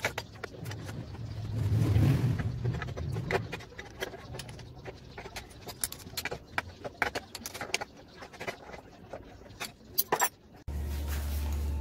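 Light metallic clicks and clinks of a small combination wrench working the flange nuts on a motorcycle's rear fender bracket. A low rumble swells and fades about two seconds in, and a steady low hum starts abruptly near the end.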